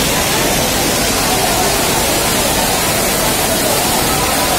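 Heavy rain pouring down onto a train's coaches: a loud, steady hiss.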